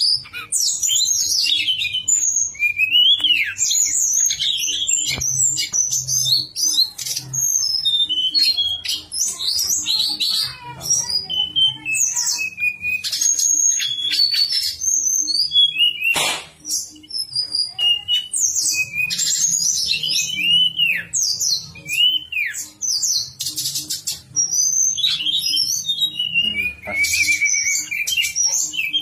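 A tledekan gunung songbird singing without pause: a dense run of rapid high chirps mixed with slurred, flute-like whistles that rise and fall. This is the kind of recording played to caged birds to train their song.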